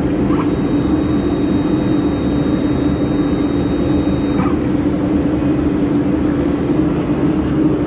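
Steady running hum of a powered-up 200 W laser welding machine and its cooling equipment, with one low note held throughout. A faint high whine stops about four and a half seconds in.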